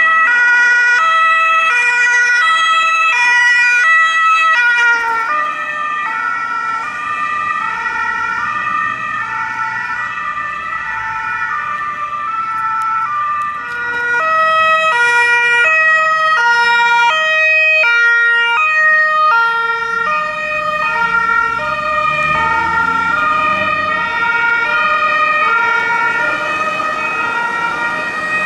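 German two-tone emergency-vehicle sirens (Martinshorn), at least two sounding at once. Each alternates between a low and a high note held just under a second, and they drift in and out of step with each other. The notes drop slightly in pitch about five seconds in, over a steady high tone and a low engine rumble.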